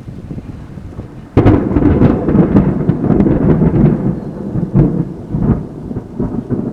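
Thunder: a sudden loud crack about a second and a half in, followed by a long rumble with irregular crackles.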